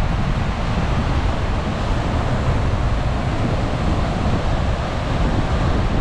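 Strong typhoon wind buffeting the microphone over the steady rush of storm surf breaking on a sandy beach.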